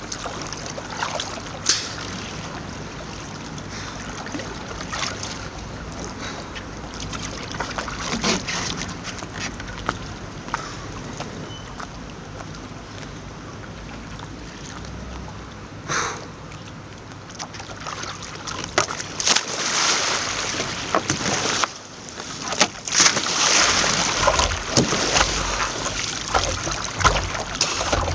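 Kayak paddle strokes and water sloshing against the hull, with sharp splashes scattered through and heavier, louder splashing in the second half.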